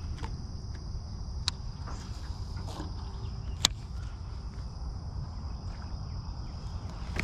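A steady high insect buzz, like crickets, over a low wind rumble on the microphone, with two sharp clicks, the louder about three and a half seconds in.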